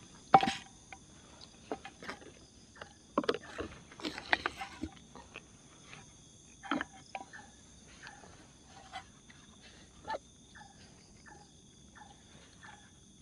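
Scattered clinks and knocks of camping cookware being handled: a pan set on a small gas stove, bottles and utensils picked up and put down. The knocks are loudest about half a second in and around three to five seconds in, over a steady high-pitched insect chorus.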